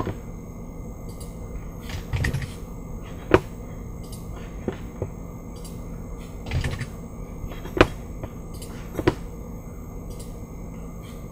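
Scattered single clicks from a computer mouse and keyboard, about seven spread irregularly, as values in drawing software are changed, over a steady low electrical hum.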